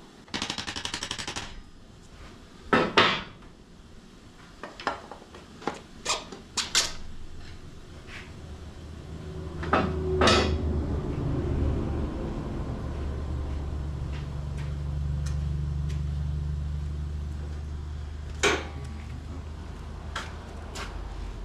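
Metal tools and parts clanking and knocking while a motorcycle's rear axle and spacers are worked into line, with a rapid run of clicks about half a second in. A low steady hum starts about nine seconds in and runs on under the knocks.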